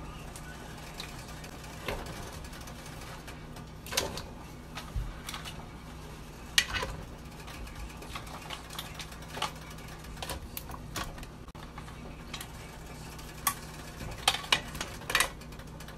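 Irregular light clinks and knocks of a cooking utensil against a pan, with several in quick succession near the end, over a steady low hum.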